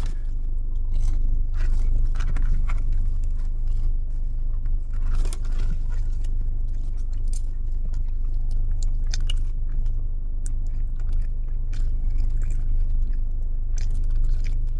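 Close-up biting and chewing of crunchy breaded spicy chicken fries: a run of irregular crisp crunches and chews over a steady low hum.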